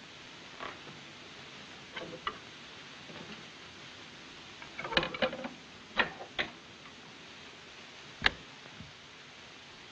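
Clicks and knocks of a cabinet record player being worked by hand: a few light taps, a cluster of clatter about five seconds in, and one sharp click near the end, over a steady hiss.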